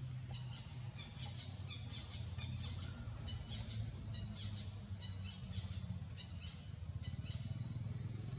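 Birds chirping and twittering in quick repeated bursts, over a steady low hum.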